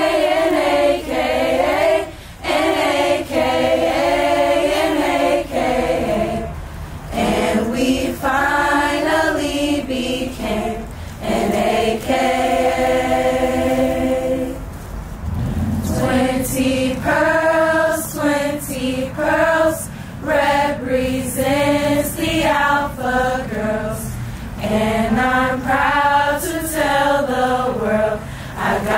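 A group of young women singing together a cappella, a choir-like chant-song in phrases with some long held notes.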